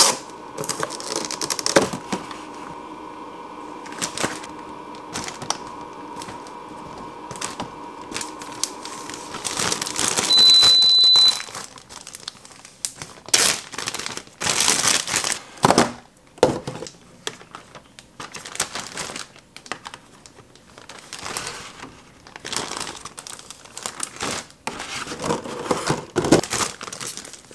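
Thin plastic zipper bags crinkling and rigid plastic clamshell containers rustling and clicking as croissants are packed into freezer bags, in irregular handling noises. A short, steady high beep sounds about ten seconds in.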